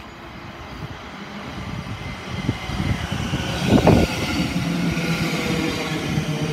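Thameslink Class 700 electric multiple unit running into the station to stop. The rumble of wheels and motors grows as it nears, a brief loud rush comes about four seconds in as the front passes close by, then a steady traction hum as it slows along the platform.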